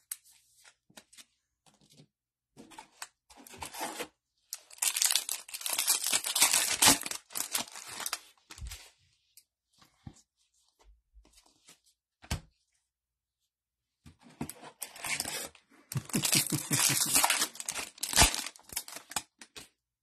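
Foil trading-card pack wrappers being torn open and crinkled in two long noisy spells, with light clicks and rustles of cards being handled in between.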